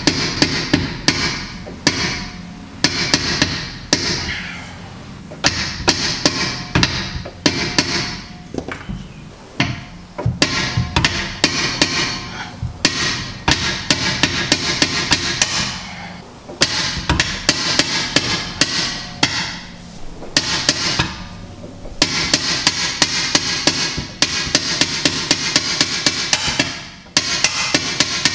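Hammer blows on a seized steel camber-adjustment bolt in a car's rear suspension knuckle, trying to drive it out. The blows come in runs of several a second, with short pauses between runs. The bolt is stuck fast and won't come out.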